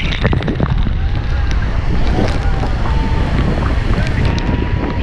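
Wind and spray buffeting the microphone over the steady roar of the Horseshoe Falls at Niagara, heard from a boat at the foot of the falls amid churning water.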